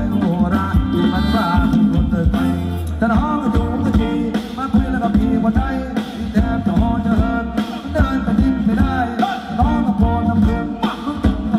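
Live band playing Thai ramwong dance music through stage loudspeakers: a singer's voice over a steady drum beat and bass.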